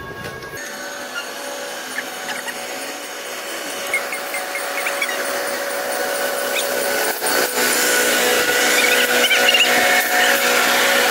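Commuter train pulling in to a stop, its brakes squealing in short high chirps over a steady metallic whine that grows louder as it draws alongside.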